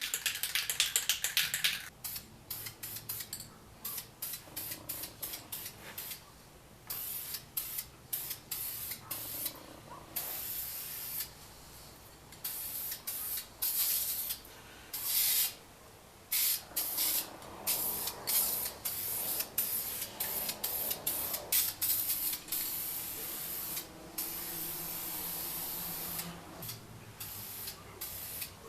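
Aerosol can of wheel coating sprayed in repeated bursts of hiss, some short puffs and some held for a second or more. A fast rattle at the start comes from the can's mixing ball as the can is shaken.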